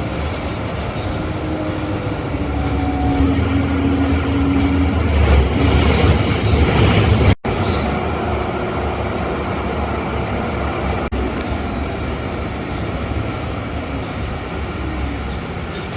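Inside a moving city transit bus: steady engine and road rumble, with a short drop-out about seven seconds in.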